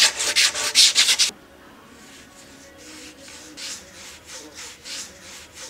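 Wooden board being sanded by hand, with rapid, loud back-and-forth strokes for the first second or so, then slower, quieter strokes for the rest.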